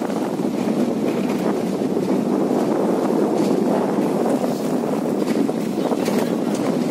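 Steady rush of wind buffeting a phone's microphone while riding in a moving open jeep, with the vehicle's running noise underneath.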